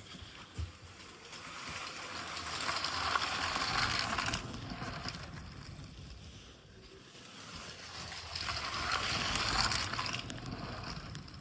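LEGO train running on plastic track, its motor and wheels making a whirring clatter that swells and fades twice as it passes by, loudest about three seconds in and again near nine seconds.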